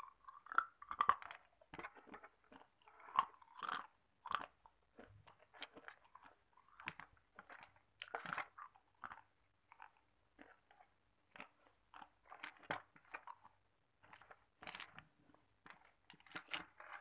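Hard ice cubes being bitten and chewed: a run of sharp, irregular crunches, denser and louder in the first few seconds.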